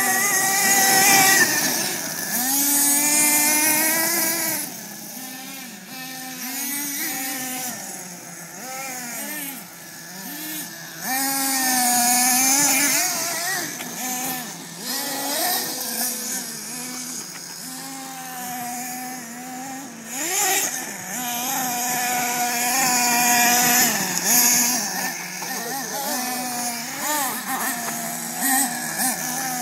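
Small nitro engine of a radio-controlled off-road car, revving up and falling back again and again as it is driven hard, with a high hiss over it at times.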